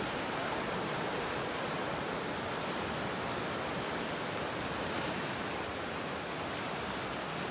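Ocean surf washing in over a rocky shoreline: a steady, unbroken wash of small waves.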